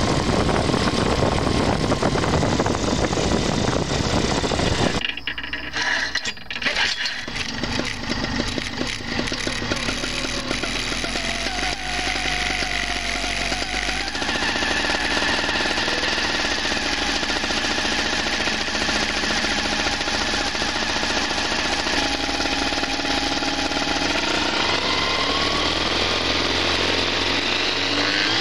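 The Bluebird ultralight's 16-horsepower paramotor engine running at low throttle with a rapid, jackhammer-like chugging, settling into a steadier run, its pitch starting to rise near the end as it is throttled up. Before that, a dense, loud noise cuts off suddenly about five seconds in.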